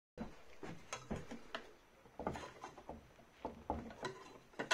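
Faint, scattered taps, clicks and knocks as sheet zinc is handled against a cast-iron bench vise, with one sharper click near the end.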